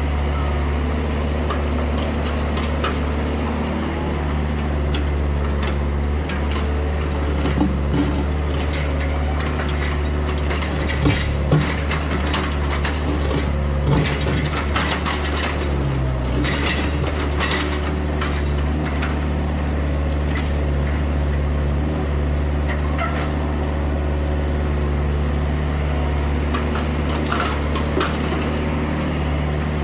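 Hydraulic excavator's engine running steadily under work, a constant low drone, with scattered knocks and clatters from the digging and demolition, most of them around the middle.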